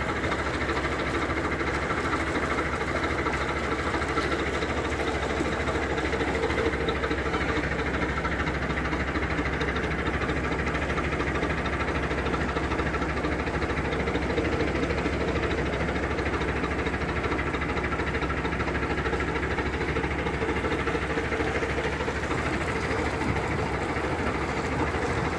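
Narrowboat's Gardner diesel engine running steadily under way, towing a second boat, with a slow, even chug.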